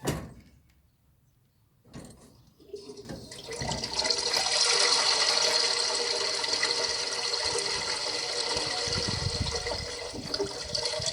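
A knock at the start, then a litter bin's built-in speaker plays a toilet-flush sound effect: rushing, gurgling water that comes in about three seconds in and runs for about nine seconds.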